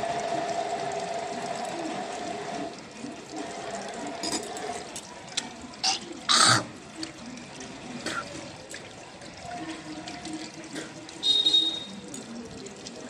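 Tap water running into a sink, with a person hawking and spitting while brushing their teeth. One loud hawk comes about six seconds in and another near the end.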